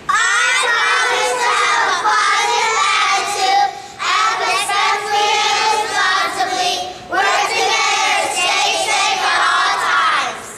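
A class of young children's voices together in unison, in three long phrases with short breaks about 4 and 7 seconds in.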